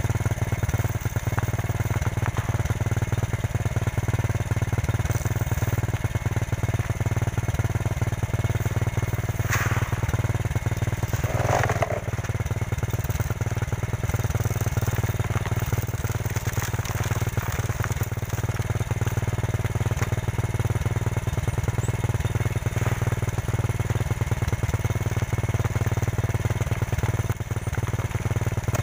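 Motorcycle engine running steadily, driving its rear wheel, which is being used as a corn sheller: cobs are held against the spinning rear tyre to strip off the kernels.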